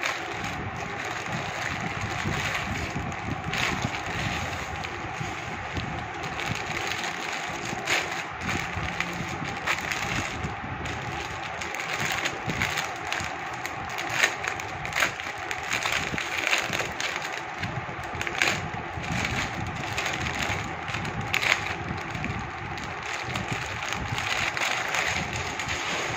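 Plastic packaging crinkling and rustling as a polythene courier mailer and a clear plastic garment bag are pulled open and handled, with frequent sharp crackles at irregular moments.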